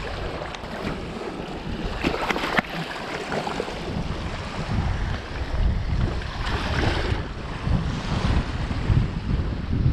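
Strong wind buffeting the microphone in uneven low gusts, over the wash of waves on the shore, with a couple of sharp clicks about two seconds in.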